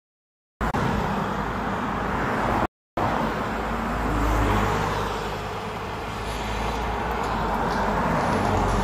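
Roadside traffic noise, a steady rumble and hiss of cars on the road, cut to dead silence twice by livestream dropouts: once until about half a second in, and again briefly just under three seconds in.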